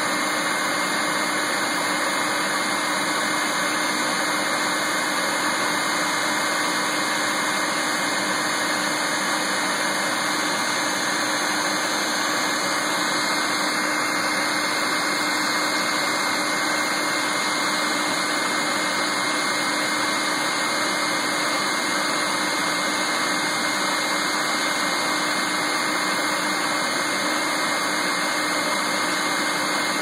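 Bee vacuum running steadily, sucking bees from a swarm cluster: an even rush of air with a constant tone in it.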